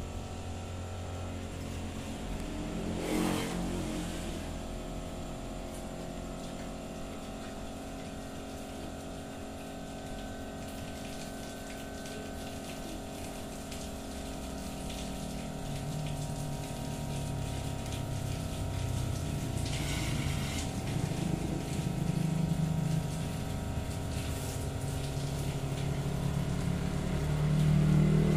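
A machine running steadily in the workshop: a drone of several fixed tones over a low rumble, slowly getting a little louder in the second half. Two short rushing noises come a few seconds in and again about two-thirds of the way through.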